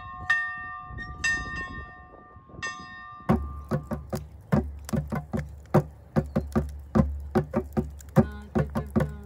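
A bell struck a few slow strokes, each ringing on. About three seconds in it gives way to two hand drums beaten with the hands in a quick, steady rhythm.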